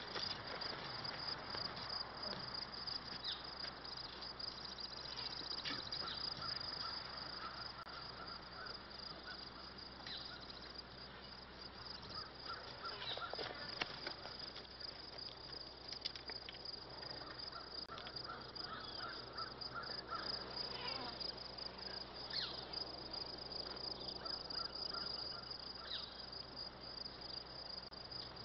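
Crows cawing on and off, with other birds calling, over a steady outdoor background hiss.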